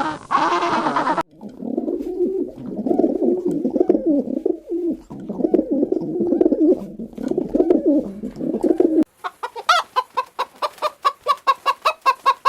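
Pigeons cooing in low, pulsing coos through most of the clip, after a different animal's call is cut off about a second in. About nine seconds in it switches to chickens clucking in quick, evenly repeated clucks.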